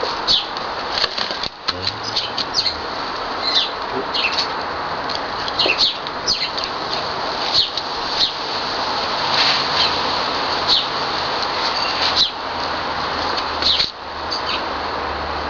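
Small birds chirping: many short, high, falling calls scattered throughout, over a steady background hiss.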